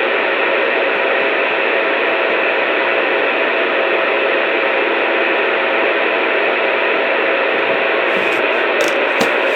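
Two-way radio speaker putting out a steady static hiss with faint humming tones in it, with a few faint clicks near the end.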